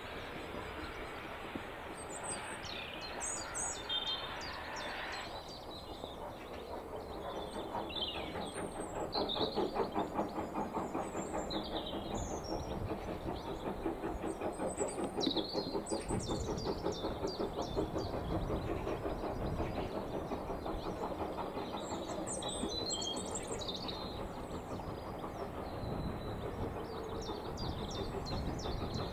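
GWR Modified Hall 4-6-0 steam locomotive 6990 working a train, its exhaust beating in a fast, even rhythm that grows louder about six seconds in as it approaches. Birds chirp throughout.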